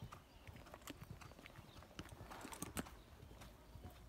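Faint hoofbeats of a 14 hh Connemara mare cantering on a sand arena surface: a scatter of soft, irregular knocks, one louder knock a little before the end.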